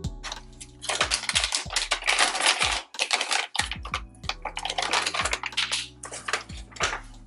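A bag of Pup-Peroni dog treats crinkling as it is handled and opened, in bursts of dense crackling with short pauses.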